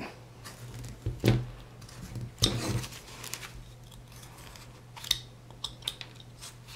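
Carving knife slicing into a wooden block by hand, cutting up to a stop cut: a few short scraping cuts and light clicks, one longer cut about two and a half seconds in.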